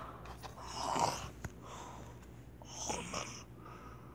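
A person's noisy breathing: two drawn-out, hissy breaths about two seconds apart, in the manner of snoring.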